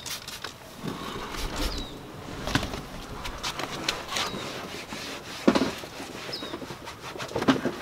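Scrubbing and handling noises from cleaning a car's door sill and interior trim with interior cleaner and a towel: scattered clicks, knocks and short scrapes, the loudest knock about five and a half seconds in. A bird chirps twice in the background.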